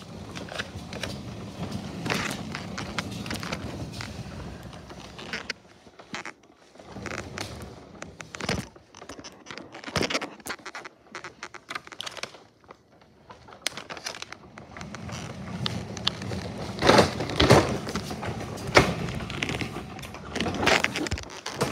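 Irregular rubbing, rustling and knocks of clothing and skin against the phone's microphone, with louder bumps near the end.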